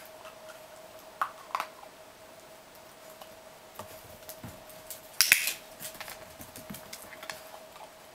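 Scattered sharp clicks and taps: a pair a little over a second in, and a louder short cluster about five seconds in. A faint steady hum lies under them.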